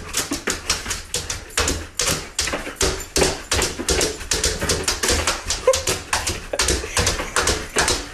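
A large dog scratching and pawing at a glass door, its claws tapping on the glass in quick irregular strokes, several a second, with a few short whimpers.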